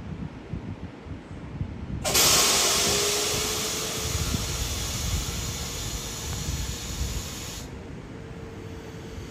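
A sudden loud hiss of compressed air starting about two seconds in, held steady for five or six seconds and cut off abruptly: a train's air brakes or pneumatic system venting. Wind rumbles on the microphone throughout.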